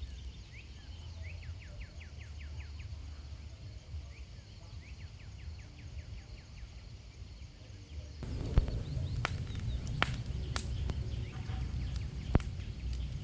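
Outdoor forest ambience with short trains of rapid, high, falling chirps. About eight seconds in, the background turns suddenly louder and several sharp snaps or clicks follow.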